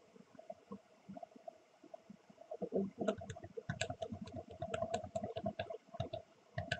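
Faint, quick clicking from a computer as slides are skipped through: a few scattered clicks at first, then many in rapid succession from about three seconds in until near the end, over soft low rumbling.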